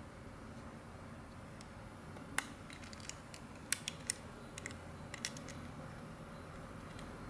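About a dozen light clicks and taps in a cluster starting a couple of seconds in, from hands handling a small plastic mobile Wi-Fi modem and its packaging.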